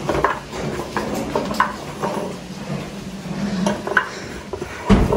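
A metal spoon and a plastic scoop scrape and clink against a wooden pilão and an aluminium bowl as ground annatto powder is scooped out, in several short, separate clinks and scrapes, with a louder low knock near the end.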